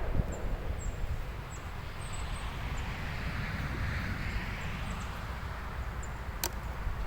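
Wind buffeting the microphone, a steady low rumble with a gust swelling into a rushing hiss mid-way, and a single sharp click near the end.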